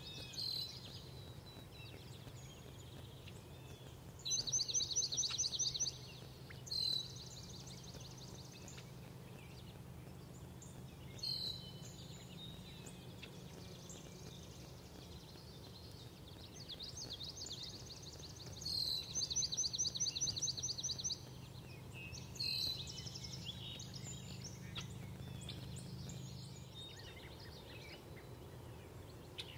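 A songbird singing a rapid high trill, each song lasting about a second and a half to two seconds and repeated several times, with short high notes between the songs. A steady low hum runs beneath it until near the end.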